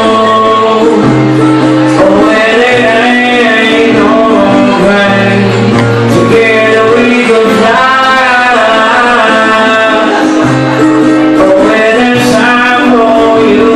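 A man singing live, accompanied by his own acoustic guitar.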